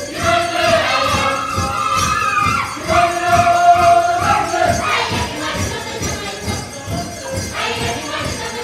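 A children's group sings a folk dance song together, with a strong held note about three seconds in, over a steady beat and rhythmic jingling percussion.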